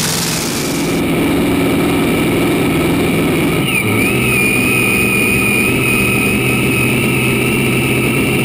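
V8 engine of a light-modified pulling tractor running steadily at idle. A high, steady whine comes in about four seconds in.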